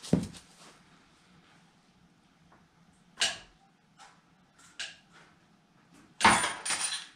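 Tools and engine parts being handled at a workbench. A heavy knock comes at the start, a clank about three seconds in and a lighter click near five seconds. Near the end there is a louder, noisy burst lasting just under a second.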